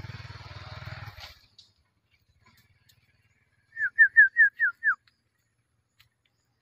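A rough rustling noise for about the first second, then, about four seconds in, a quick run of six whistled notes, each sliding down in pitch, the last one falling lowest.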